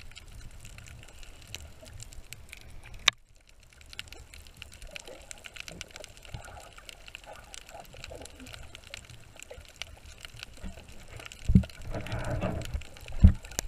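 Underwater sound picked up by a submerged camera: a steady wash of moving water with many faint crackles and clicks. There is a sharp click about three seconds in, and heavier low thumps and a rougher churning near the end.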